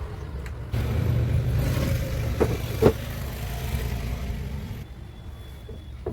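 Tractor engine running with a low, steady rumble that grows louder about a second in and drops back near the end, with two sharp knocks around the middle.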